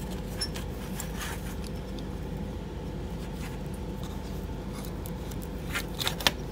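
Electrical wires and armored flex cable being handled at a metal junction box: light rustling and small ticks, with a few sharper clicks near the end, over a steady low machine hum.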